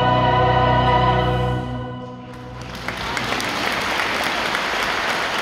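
A massed choir of about 300 voices with accompaniment holds its final chord, which dies away about two seconds in; then the audience breaks into steady applause.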